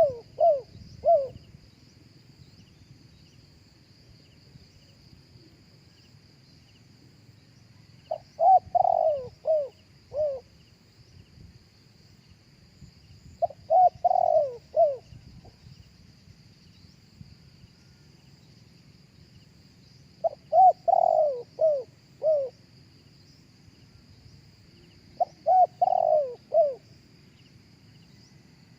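Spotted dove cooing: four phrases of a few low, falling coo notes, about six seconds apart, with the end of another phrase at the start. A faint steady high insect hum runs underneath.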